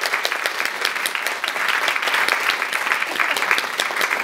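A small audience applauding, many overlapping hand claps.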